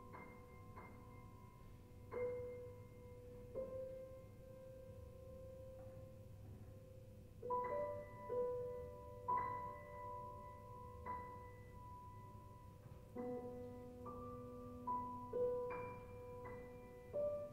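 Grand piano playing a soft, slow contemporary piece: single notes and small chords in the middle register, struck about once a second with pauses between, each left to ring on, a few pitches returning again and again. A steady low hum sits underneath.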